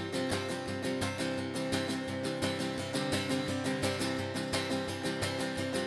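Acoustic guitar strummed in a steady rhythm, with no voice over it.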